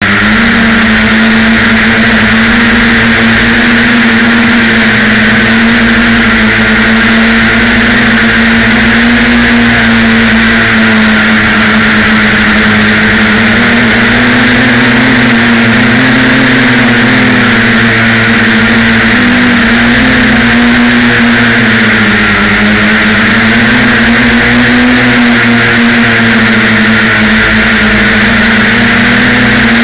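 FPV quadcopter drone's motors and propellers buzzing steadily, heard from the camera mounted on the drone itself, the pitch wavering a little up and down as it flies.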